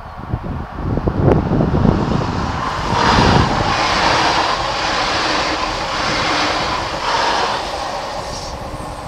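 Electric passenger train passing close by at a level crossing. A low rumble builds as it arrives, then wheels and rails rush past, the noise swelling and dipping as the cars go by, and it fades near the end.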